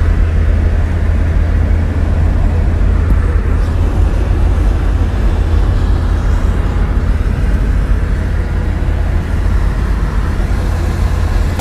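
Steady low drone of a Chevrolet Chevette's engine and road noise heard inside the cabin while driving at highway speed, with tyres running on a wet road.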